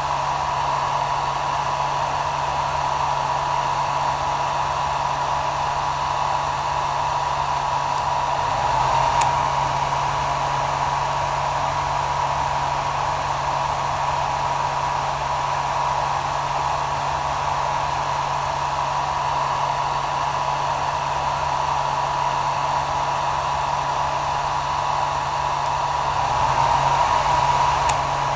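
Hair dryer running steadily: a continuous blowing with a thin, steady whine, swelling slightly about nine seconds in and again near the end.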